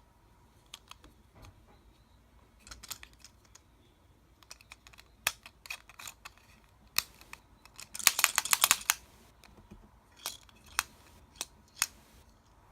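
Hard plastic clicks and clacks from handling a DX Drill Crusher toy weapon, with a dense run of rapid clicks about eight seconds in.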